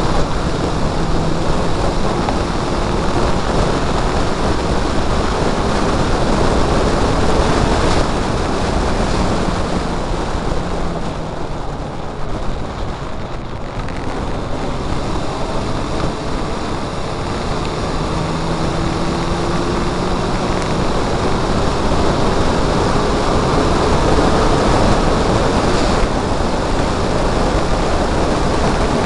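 Mazda MX-5 race car's four-cylinder engine pulling hard, its pitch climbing in long sweeps as it revs through the gears, half buried under heavy wind and road noise on the onboard microphone. The sound eases off briefly around the middle as the car slows for a corner, then builds again.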